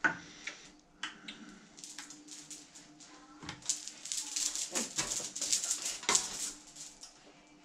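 Small clicks and rattles of capsules and tablets handled in the palm and around plastic pill-bottle caps on a wooden table, densest a few seconds in, over a faint steady hum. A short falling whine near the middle.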